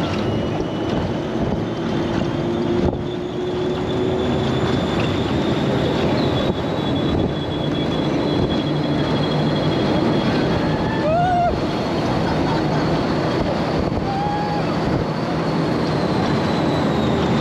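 Test Track ride vehicle speeding along its outdoor high-speed track: a steady rush of wind and running noise, with a thin whine that slowly rises and falls in pitch.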